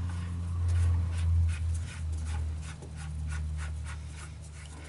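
Light irregular scraping and clicking as a bypass oil filter adapter is screwed by hand onto the engine's oil filter post, over a steady low hum.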